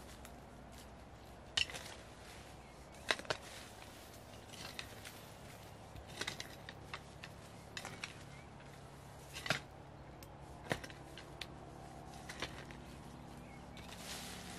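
A long-handled garden tool worked through loose, freshly dug soil: irregular scrapes and sharp knocks as its head strikes stones and clods. The loudest knocks come about one and a half, three, nine and a half and eleven seconds in.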